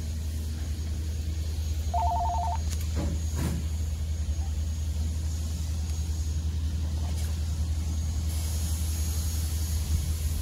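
Steady low rumble, with a brief pulsing two-tone electronic ring like a telephone ringtone about two seconds in, followed by a couple of faint clicks.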